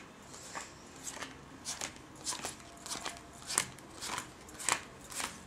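Playing cards dealt one at a time off a deck onto a cloth card mat, a short light snap for each card, about two a second.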